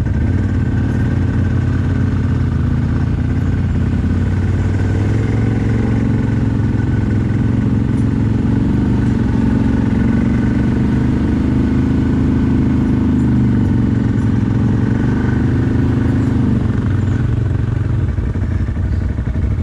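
CFMoto 1000 ATV's V-twin engine running steadily while riding. Its note rises slightly in the middle and eases off near the end.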